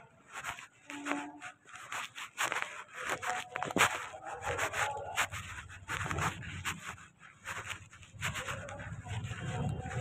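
Irregular rubbing and knocking of a handheld phone's microphone as it is carried on foot, with a faint low hum joining about halfway through.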